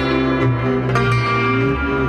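Concert cimbalom played with cotton-tipped mallets: quick runs of struck, ringing string notes over sustained low notes.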